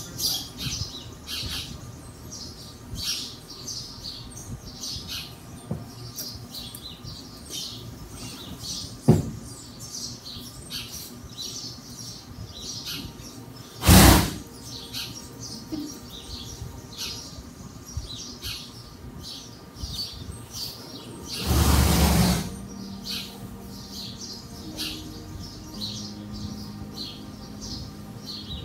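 Small birds chirping again and again with short, high calls. A sudden loud burst about halfway through and a longer rushing burst later on stand out above them.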